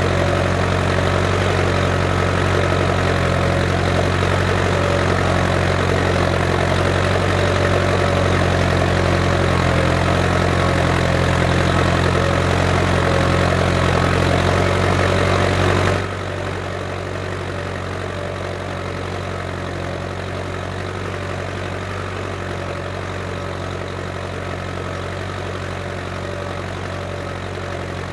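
Case International 885XL tractor's diesel engine running steadily while pulling a plough, a low drone. About halfway through the sound suddenly becomes quieter and duller, then carries on steadily.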